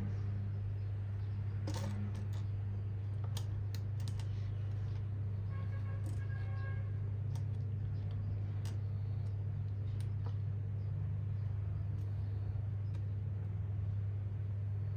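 Small plastic building bricks clicking and tapping as they are handled and pressed together: scattered, irregular clicks over a steady low hum.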